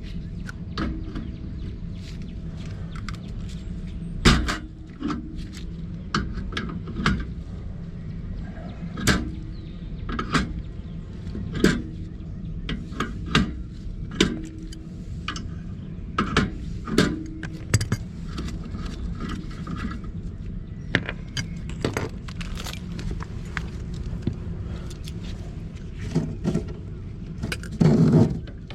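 Irregular metallic clinks and knocks of hand tools and gas pipe fittings being handled, over a steady low hum.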